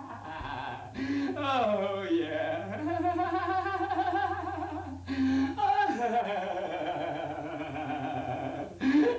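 Wordless, wavering singing-like tones in long held notes, sliding downward about two seconds in, over a steady low electrical hum.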